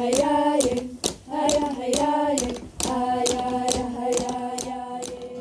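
Soundtrack music: a voice singing long held notes over a steady rhythm of sharp hand claps, about two to three a second.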